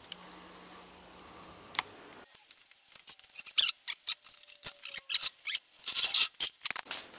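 Hands working on a removed Fiat Ducato gearbox casing: a rag rubbing the housing and small metal clicks and scrapes. After a faint hum, a rapid irregular patter of sharp ticks and rustles starts about two seconds in.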